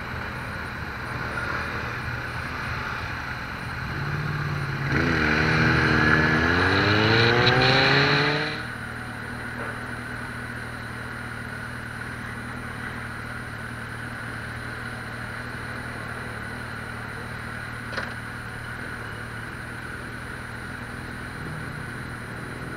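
Vehicle engine accelerating hard for about three seconds, its pitch rising steadily, then easing back to a steady low running hum. A single sharp click comes near the end.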